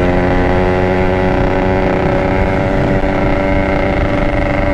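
Yamaha RX-King's single-cylinder two-stroke engine running at a steady speed under way, held back because the freshly rebored engine is still being run in.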